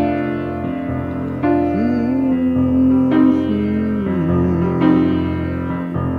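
Solo piano playing a slow chord progression, with a new chord struck about every second and a half. Through the middle a wordless vocal line glides up and down over the chords.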